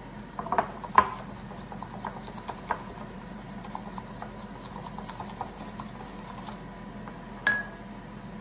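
Light taps and clinks of a bamboo matcha whisk and ceramic bowl being handled on a kitchen counter: a sharper knock about a second in, a run of small irregular ticks, and one more click near the end.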